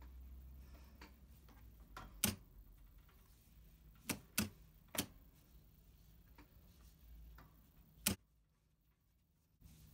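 Typical GC6880MD3Y industrial sewing machine's solenoid-driven auto presser foot lifter, worked from the foot control, clicking five times, two of them close together in the middle, over a low hum that cuts off after the last click.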